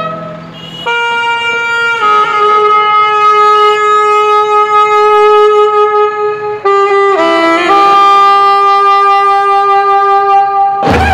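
A solo wind instrument with a reedy, saxophone-like tone plays a slow melody in long held notes. It comes in about a second in and bends its pitch briefly just past the middle before settling on a lower held note.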